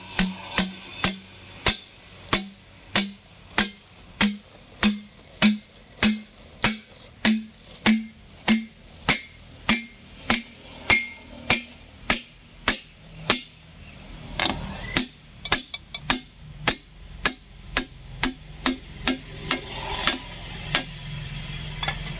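Hammer blows on a driver plate, tapping a new cylinder liner down into the bore of a Volvo EC210B's six-cylinder diesel block. The strikes come evenly at about two a second, each with a short metallic ring. They pause briefly past the middle, quicken, and stop about two seconds before the end.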